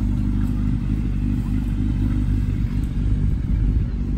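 Car engine idling steadily, a constant deep rumble with an even, unchanging low pitch.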